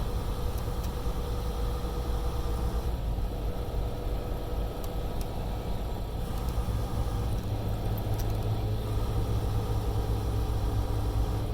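Semi-truck diesel engine running at low speed, heard from inside the cab along with road noise as a steady drone; the low hum grows stronger about seven seconds in.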